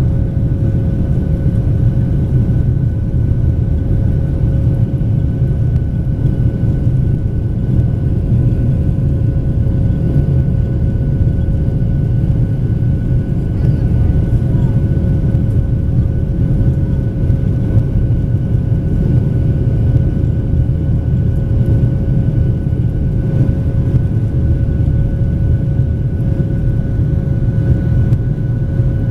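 Cabin noise of a Boeing 737-800 in its climb after takeoff: a steady low rumble from the CFM56-7B engines and airflow, with two steady whining tones over it.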